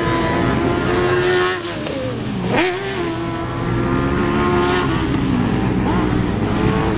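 Off-road racing buggy engine running hard on the throttle; its pitch drops sharply about two and a half seconds in as it lets off, then climbs again as it accelerates. A second engine note runs beneath it from about three seconds in.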